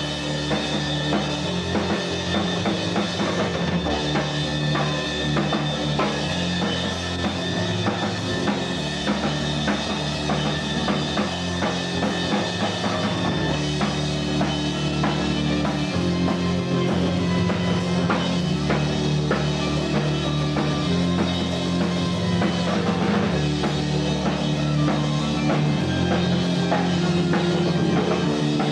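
Loud rock music led by a full drum kit, with low notes shifting every couple of seconds.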